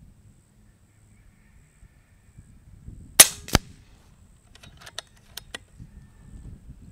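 A regulated .25 FX Wildcat MK2 PCP air rifle fires one sharp shot, followed about a third of a second later by a second, weaker crack. About a second and a half later come four light clicks as the side lever is cycled to chamber the next pellet.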